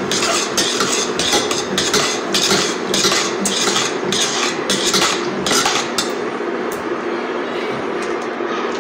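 Metal spoon scraping and stirring in a stainless steel saucepan of melting paraffin wax, in quick strokes about twice a second, then quieter after about six seconds. A steady hum runs underneath.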